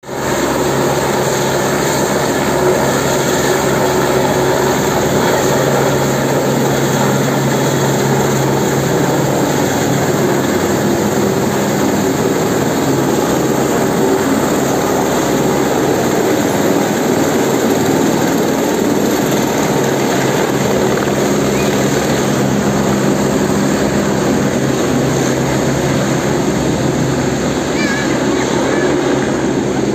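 Helibras AS350 Esquilo single-engine turbine helicopter taking off: rotor and turbine running at take-off power, a loud, steady noise with a low hum, as it lifts off, hovers and climbs away.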